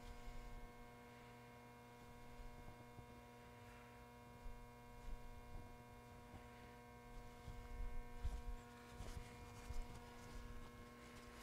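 Faint, steady electrical mains hum, with a few soft low thuds and rubs in the second half.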